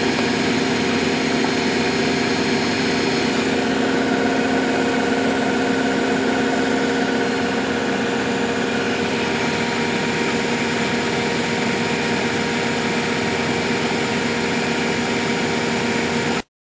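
Miele Hydromatic W734 washing machine running, a steady motor hum and whine over a rumbling drum, which cuts off abruptly near the end.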